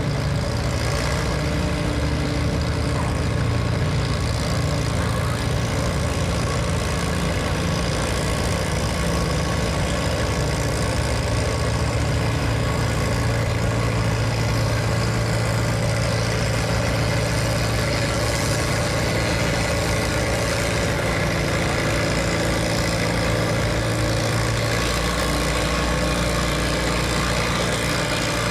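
A Farmall Super M tractor's four-cylinder engine runs hard and steady under load, pulling the weighted sled. Its low note drops in pitch about three-quarters of the way through.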